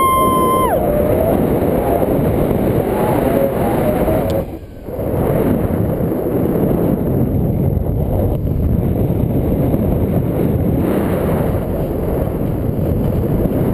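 Wind rushing over the microphone of a camera held out on a selfie stick during a tandem paraglider's launch run and takeoff: a loud, steady rush with a brief dip about four and a half seconds in. A long shouted call ends just after the start.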